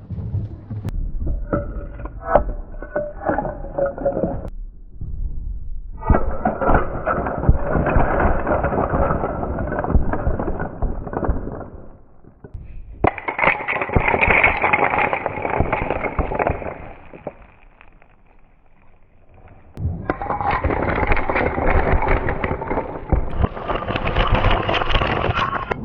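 Marbles rolling and clattering down a marble run track, in several runs of a few seconds each with short pauses between them and a quieter lull about two-thirds of the way through.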